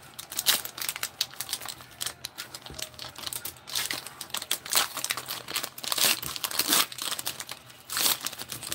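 Plastic wrapper of a football trading-card pack crinkling and tearing as it is peeled open by hand: a dense run of irregular crackles, busiest in the second half.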